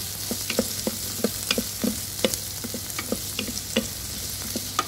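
Diced onions and garlic sizzling in melted butter in an electric pressure cooker's inner pot, with a wooden spoon stirring and knocking against the pot about three times a second over a steady hiss.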